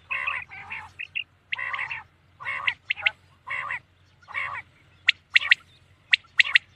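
Common quail calling: a string of short, harsh, nasal calls, then, from about five seconds in, two quick phrases of three sharp whistled notes each, the quail's trisyllabic song.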